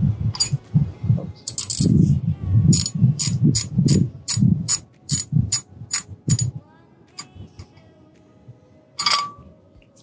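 An AR-15's charging handle being pulled back and let go again and again, so the WMD Guns NiB-X nickel boron bolt carrier group cycles in the upper receiver: a quick run of metallic clacks, about three a second, that stops after about six and a half seconds, then one more clack near the end.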